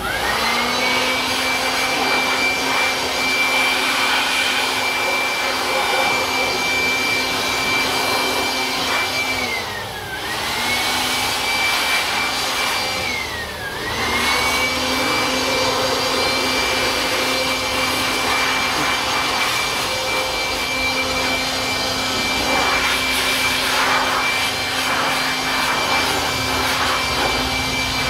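Handheld electric blower running with a steady high whine, blowing water off a washed mountain bike. The motor briefly winds down and back up twice, about ten and fourteen seconds in.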